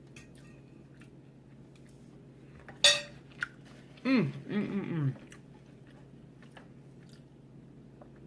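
Eating sounds during a crab meal: faint mouth clicks and chewing, and one sharp clink against a plate about three seconds in. About a second later comes a brief wordless vocal sound with falling pitch.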